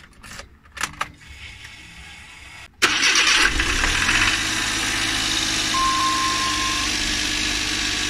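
Keys jingle and click in the ignition. About three seconds in, the starter cranks briefly and the cold Suzuki Every Wagon's 660 cc turbocharged K6A three-cylinder engine catches, then settles into a steady idle. A short high steady tone sounds for about a second partway through.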